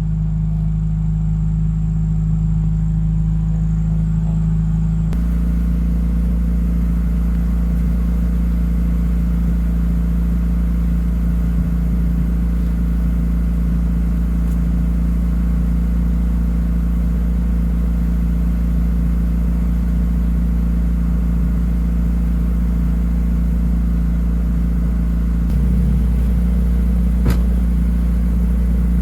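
Mitsubishi Mirage's engine idling steadily just after being started for the first time in about two weeks. The idle note changes about five seconds in, and there is one brief click near the end.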